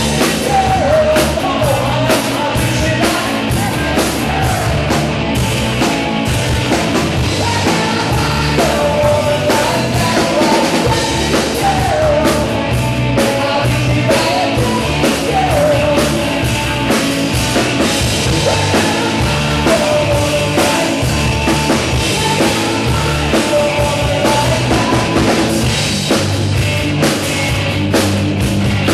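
Live rock band playing loud and steady, with a drum kit keeping the beat and a man singing lead into a microphone.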